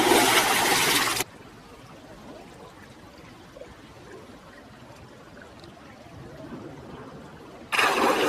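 Water splashing as a person flips his head up out of river water, throwing spray from his hair: a loud splash lasting about a second and a half at the start, a quieter stretch of faint water sounds while he is under, and a second loud splash near the end.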